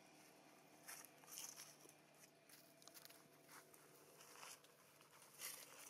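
Faint, scattered rustling and crackling: a handful of brief dry crackles spread through a near-quiet background, the loudest near the end.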